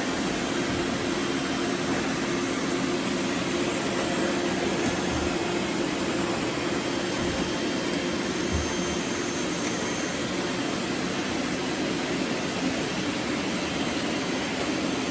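Several robot vacuums running at once: a steady whir of suction fans and brush motors with a low hum held underneath.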